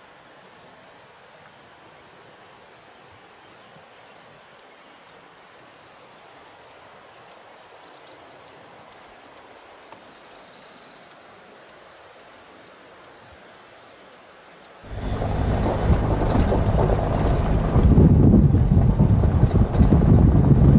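Quiet forest air with a few faint bird chirps. About fifteen seconds in it cuts suddenly to a loud rush of wind buffeting the microphone over the low road rumble of the moving Toyota Land Cruiser.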